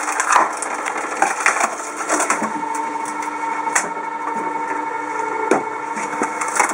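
Cone-shaped screw wood splitter running with a steady motor hum while logs of moderate size crack and splinter apart in irregular sharp snaps.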